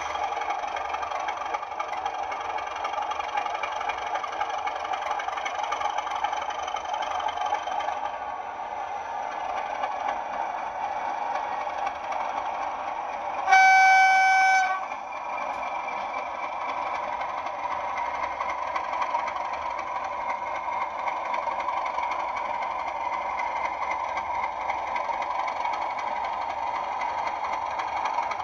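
Class 37 diesel locomotive sound from a Bachmann model: the engine running steadily, with one horn blast about a second long midway through, the loudest thing heard.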